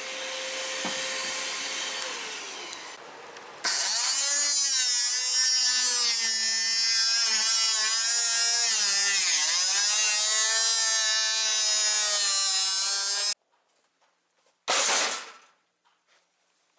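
A handheld power tool working fiberglass. It starts as a softer whir, and from about four seconds in a loud whine runs with its pitch sagging and recovering under load. It stops abruptly, and a short burst of the tool follows near the end.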